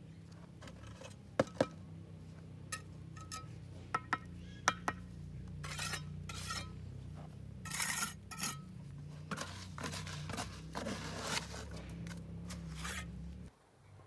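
Hard objects knocked and scraped together: sharp single knocks and clinks, then rasping scrapes, over a steady low hum that cuts off suddenly near the end.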